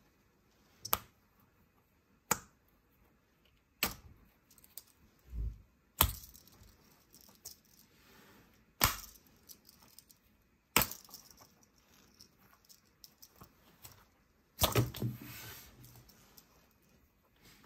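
Rubbery Super Stretchy Mickey Mouse figure being stretched and handled, with sharp slaps about every two seconds as its limbs snap back. There is a low thump about five seconds in, and a longer rubbing contact near the end as the figure is set down on the table.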